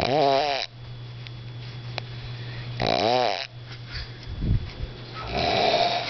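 A man snoring in his sleep: three snores about three seconds apart, the first two with a clear pitch that rises and falls, the last more breathy.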